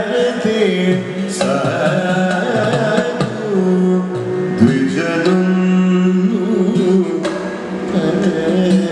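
A male vocalist sings live in Carnatic style, holding long notes and sliding between pitches, with occasional drum strokes.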